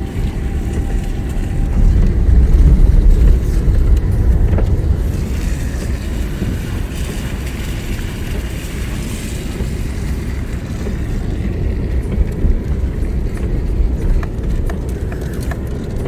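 Car on the move: steady engine and road noise, a little louder for a couple of seconds near the start.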